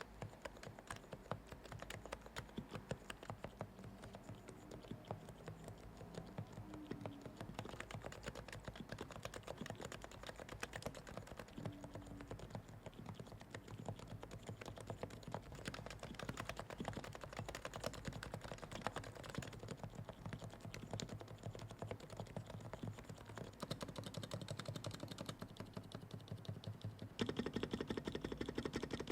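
Continuous fast typing on a fully lubed Realforce R3 Topre electrostatic capacitive keyboard, with a stream of irregular keystrokes. The typing gets louder and denser near the end.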